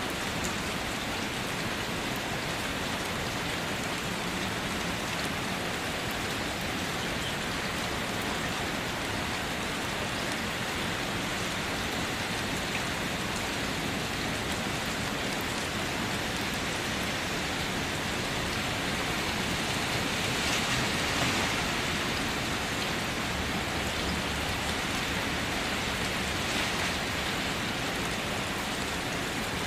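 Heavy rain pouring down and splashing onto waterlogged ground, a steady hiss of falling water that swells slightly about two-thirds of the way through.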